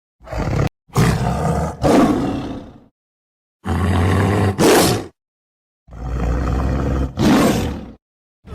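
Tiger roars played back to back: about seven loud roars, mostly in pairs, with stretches of dead silence between them.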